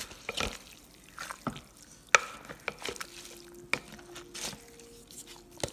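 A meat mallet mashing and stirring ground turkey in a crockpot: wet squelches with irregular clicks and knocks of the tool against the pot. The sharpest knock comes about two seconds in.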